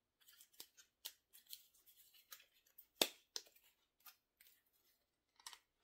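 Plastic holders of two Sunex hex key sets being handled and fitted together on their hinge: scattered faint clicks and taps, with one louder click about three seconds in.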